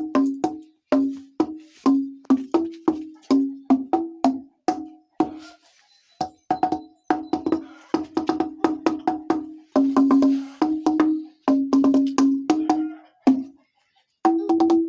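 Old oak beams struck with a wooden mallet like a big xylophone: quick, irregular strikes, each ringing with a short clear note. The pitch changes from beam to beam, and there are brief pauses about five seconds in and near the end.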